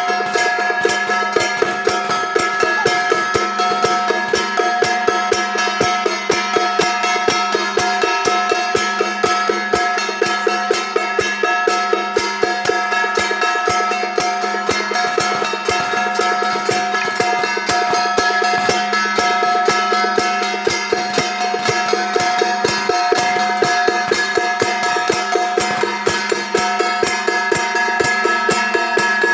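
Temple procession percussion music: a fast, even drum beat with steady ringing tones held above it.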